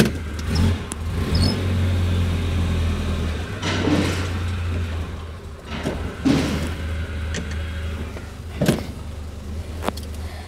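Amphicar's rear-mounted 1147 cc Triumph Herald four-cylinder engine running at a steady low idle, with a few short knocks over it.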